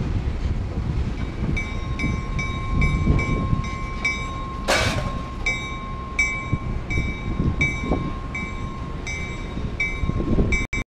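A locomotive bell ringing in a steady rhythm, about two strokes a second, with a short sharp hiss of air about halfway through. Wind buffets the microphone.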